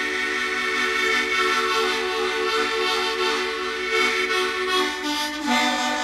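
Harmonica played as sustained chords with a regular pulsing in the lower notes; the chord changes about five and a half seconds in.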